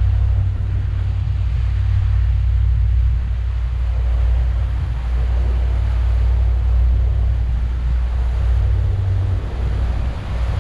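Steady low rumble of a Sea Ray cruiser's Mercruiser 7.4 L (454) inboard engines underway, with a hiss of wind and water on top.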